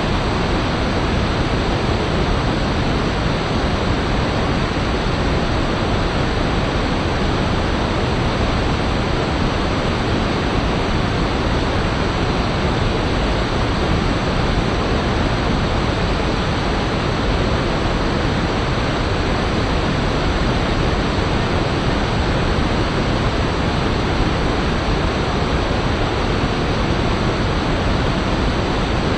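River water rushing over rocks: a steady, full roar of white water with no break.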